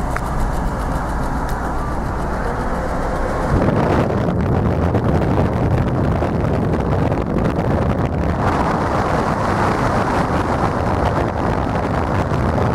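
Citroën DS driving, heard from inside the cabin: a steady rush of engine, road and wind noise. It steps up abruptly about three and a half seconds in and turns brighter again about eight seconds in.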